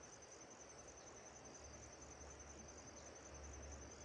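Faint, high-pitched insect chirping, cricket-like, pulsing evenly and steadily. A low rumble swells underneath from about halfway through.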